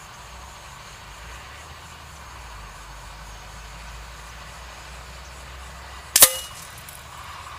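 A single sharp smack with a short ringing tail about six seconds in: an air-rifle pellet striking the paper target and its cardboard backing. Wind rumbles steadily on the microphone throughout.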